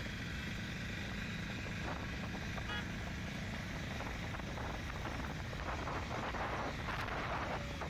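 Steady rumble of riding a motorcycle over a bridge: engine and road noise mixed with wind rushing past, the hiss growing a little stronger in the second half.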